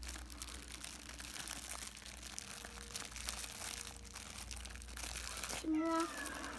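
Thin clear plastic wrapping crinkling and crackling as a small gift is pulled out of it, with a short voice near the end.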